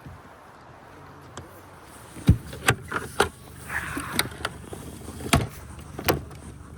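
A run of about eight sharp knocks and clunks, the first about two seconds in and the loudest, over a low steady hum.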